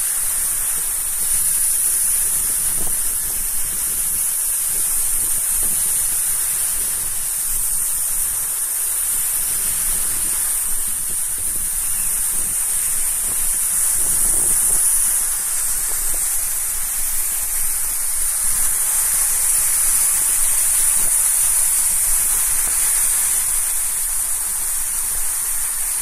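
Sea surf breaking and washing up onto a shell-gravel shore: a steady rushing hiss of waves.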